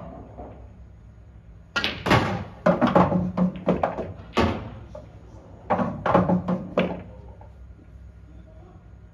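Pool balls clacking after a cue shot on an English pool table: a quick run of sharp knocks about two seconds in as balls collide and hit cushions and pockets, with dull thuds among them, then another burst of knocks and thuds about six seconds in.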